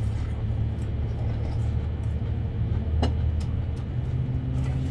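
Steady low mechanical hum with faint steady tones, with one sharp clink about three seconds in.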